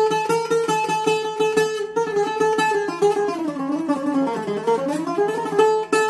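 Solo bouzouki picked with a plectrum: rapid repeated strokes on a high note, then a quick melodic run that falls in pitch and climbs back up.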